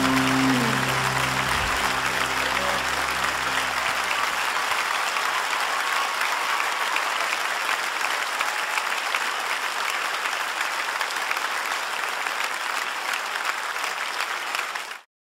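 Theatre audience applauding as the song's final held chord dies away over the first few seconds. The applause goes on evenly and cuts off suddenly near the end.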